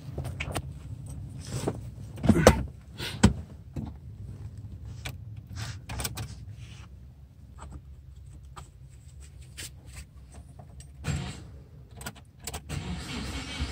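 Handling noises inside a car cabin: scattered knocks, clicks and rustles, loudest a couple of seconds in and again near the end, with a denser steady noise setting in just before the end.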